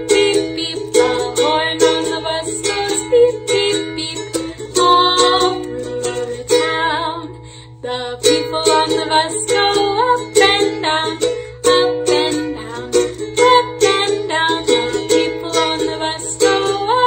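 Music: a string instrument strummed in a steady rhythm.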